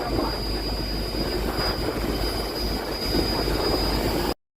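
A running engine: a steady low rumble with a thin, steady high whine above it, cut off abruptly about four seconds in.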